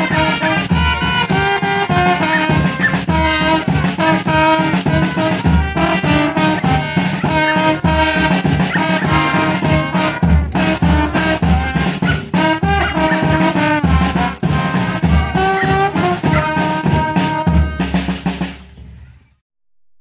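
Brass band playing: trumpets and trombones over a beating bass drum. The music fades out near the end.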